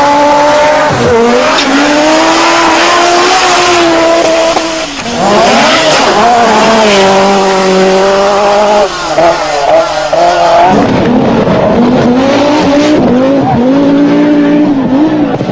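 Group B rally car engine revving hard, its pitch climbing and falling through the gears. It lifts briefly about five seconds in, and it runs rough and uneven around ten seconds before pulling again.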